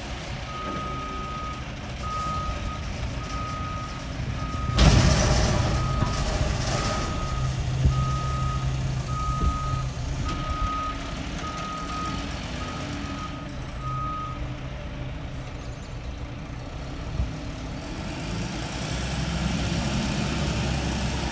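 Garbage truck's backup alarm beeping about once a second over its running diesel engine, then falling silent. About five seconds in comes a loud, sudden hiss, and the engine swells near the end.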